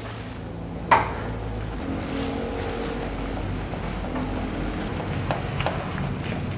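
Knife cutting a soft, chewy steamed ongol-ongol cake: one sharp tap about a second in and a few fainter taps near the end, over a steady low rumble.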